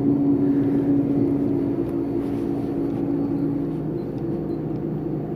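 Steady low mechanical hum with a held droning tone that weakens about three and a half seconds in.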